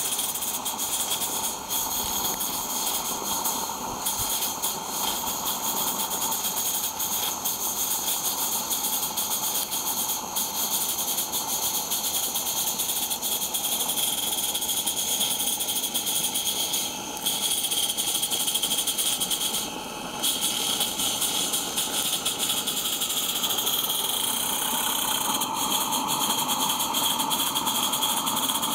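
Live-steam garden-railway locomotive running with a steady hiss of escaping steam, briefly dipping twice about two-thirds of the way through.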